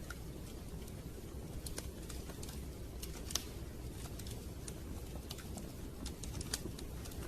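Wood fire crackling, with irregular sharp pops and snaps over a steady low rush; one louder pop about three seconds in.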